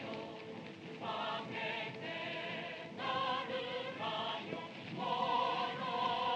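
A chorus of voices singing a Japanese wartime marching song in held notes, with lyrics such as 'we will not lose' and 'the heavens are ablaze'. The singing grows louder about halfway through.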